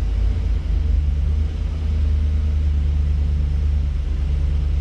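2020 Chevy Express van's engine idling steadily just after being remote-started from a smartphone app: a steady low rumble.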